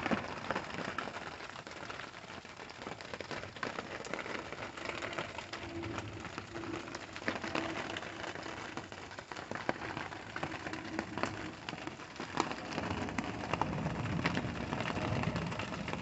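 Steady rain falling on the ground and nearby surfaces, many separate drops ticking through it, with a low rumble coming in near the end.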